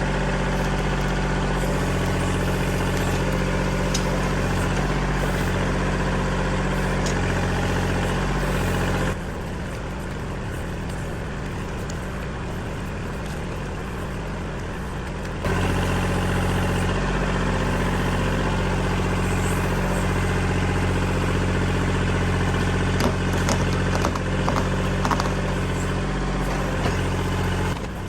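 Kubota L2501 compact tractor's three-cylinder diesel engine running steadily at working speed while the grapple is used to push over a tree. The engine sound drops noticeably for about six seconds in the middle, then comes back at full level, with a few knocks and clunks near the end.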